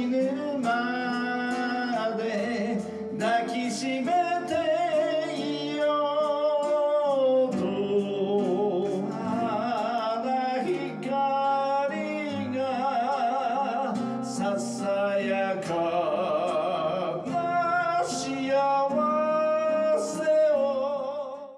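A man singing with vibrato on held notes, accompanying himself on an acoustic guitar; the sound cuts off suddenly at the end.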